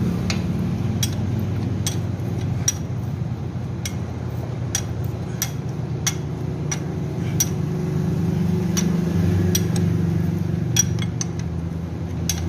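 Irregular metallic clicks and clinks, about one a second, from a wrench tightening the nut on a motorcycle's timing chain tensioner, over a steady low hum.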